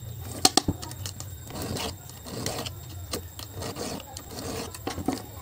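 Chainsaw chain pushed around its bar by hand in short strokes about every two-thirds of a second, the links rattling and clicking over the bar, with a couple of sharp clicks near the start. The chain is being moved along for sharpening.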